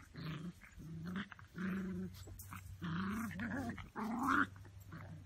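Six-week-old Epagneul Breton (Brittany) puppies growling at each other while play-fighting: a string of about five short growls, some wavering in pitch, the loudest near the end.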